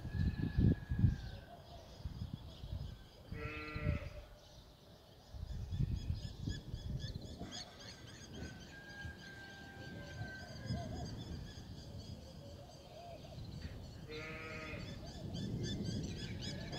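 A sheep or goat bleats twice, once about three and a half seconds in and again near the end, each call short, over low, uneven rumbling that is loudest at the start. Faint high bird chirps run underneath.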